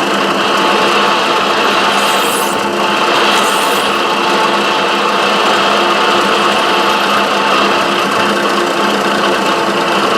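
Milling machine spindle running steadily while drilling a 15/32-inch hole through a Delrin block, with two brief bursts of higher-pitched noise about two and three and a half seconds in.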